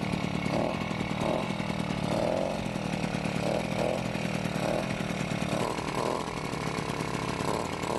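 Bullet Train 66/80cc two-stroke motorized-bicycle engine running steadily, just started with its electric starter.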